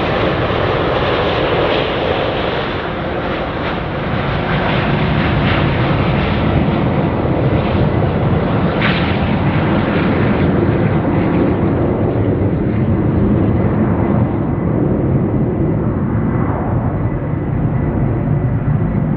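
Jet airliner engine noise: a loud, steady, rumbling roar with crackle in the first half, its upper hiss dulling over the last several seconds.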